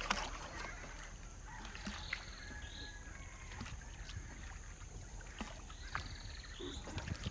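Rowboat ambience: oars knocking and dipping in calm water roughly every two seconds as the sampan is rowed along. A few faint high chirps come and go, with a brief wavering trill about five seconds in.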